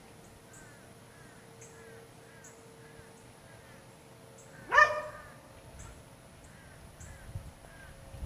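A dog barks once, loudly, about five seconds in, over faint, evenly repeated chirps.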